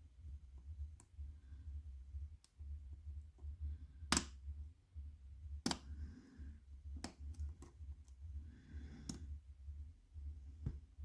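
Lock pick and tension wrench working the pins of a challenge padlock: scattered small clicks, the sharpest about four and six seconds in, over a steady low hum.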